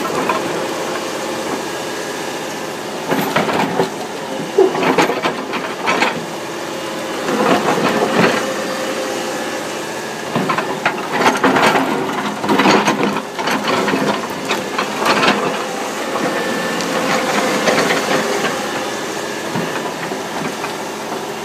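Irregular bursts of rustling and crackling, each about a second long and a few seconds apart, over a steady hiss.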